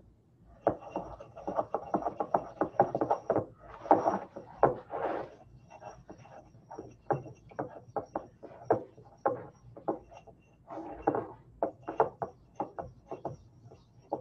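Pestle scraping around a mortar in rapid, uneven strokes with a faint ringing, mixing gum acacia into oil, the first step of making an emulsion by the dry gum method.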